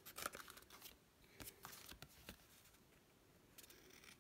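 Scissors cutting through patterned paper, faint: a quick run of snips in the first second, a few single clicks, a short pause, then snipping again near the end.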